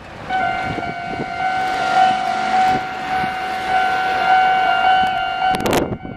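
Japanese railway level-crossing alarm starting up and ringing with a steady pulsing electronic tone, the near and far alarm units slightly out of step with each other. Near the end a brief loud rush of noise covers it.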